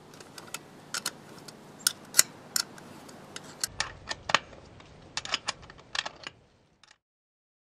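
Irregular sharp metallic clicks and clinks, a few a second, as a vermin-proof well cap is handled and fitted onto the top of the well casing. They stop shortly before the end.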